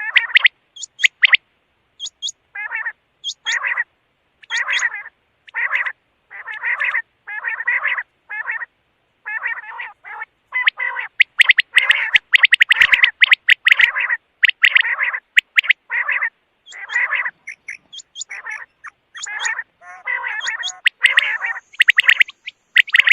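Quail calling over and over in short, rapid bursts, with a few thin higher chirps among them. The calls come closest together about halfway through.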